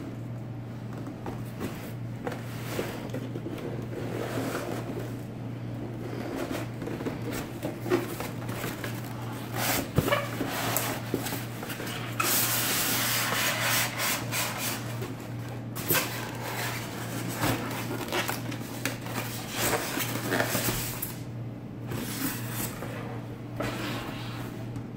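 Cardboard box being opened and handled: flaps bent back and cardboard and packing rubbing and scraping, with a few sharp clicks, and a louder, steadier stretch of scraping near the middle.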